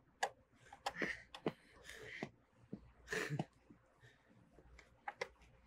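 Mostly quiet, with a few faint clicks. About three seconds in, a person lets out a short gasping breath after holding it.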